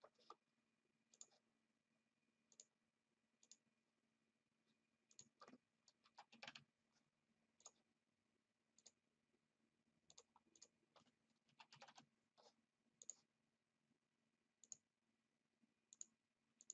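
Faint, scattered clicks of a computer mouse and keyboard keys, some single and some in quick runs of several, over a faint steady low hum.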